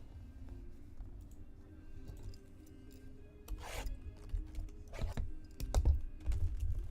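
Rubbing and scraping handling noises over faint background music: one longer rasping scrape about three and a half seconds in, then a few shorter scrapes and knocks near the end.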